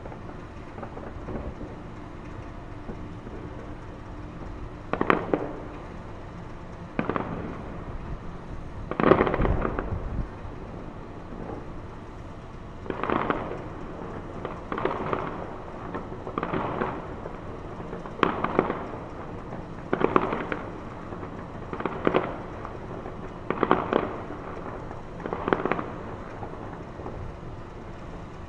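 Fireworks shells bursting, about a dozen separate booms roughly every two seconds starting about five seconds in, each trailing off in an echo. Steady wind on the microphone underneath.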